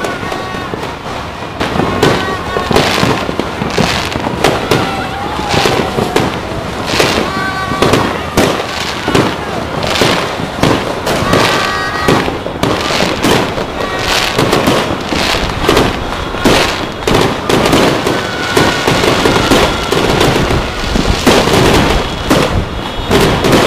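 Fireworks and firecrackers going off all around, near and far: a dense, unbroken run of bangs, pops and crackles with no pause between them.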